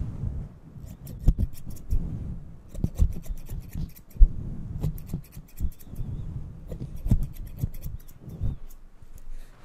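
Steel hair-cutting scissors snipping close to a microphone's furry windscreen, in about four quick runs of snips, with low rubbing and rustling from the fur being handled between them.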